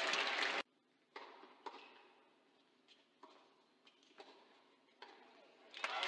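Tennis racket strokes on the ball during a point: two sharp pops about half a second apart about a second in (serve and return), then a few fainter hits. Loud crowd applause cuts off suddenly near the start and swells again near the end.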